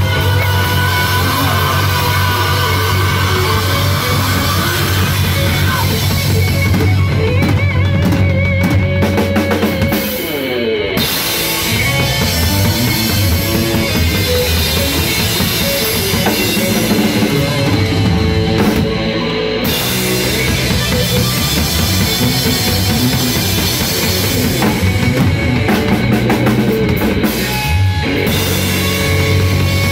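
Live rock band playing loud: electric guitar, bass guitar and a drum kit with bass drum.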